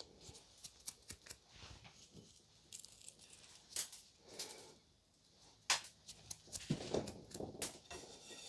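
Faint handling noises: scattered light clicks, taps and rustles of small objects being moved and set down, a little busier in the second half.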